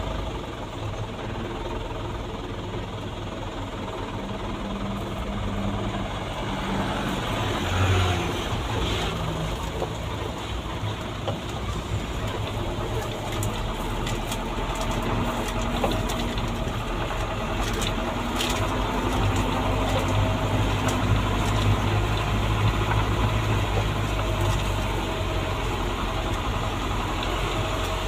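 Truck engine running heard from inside the cab as it drives slowly over a rough rocky track, its pitch rising and falling with the throttle, with scattered knocks and rattles from the cab over the bumps.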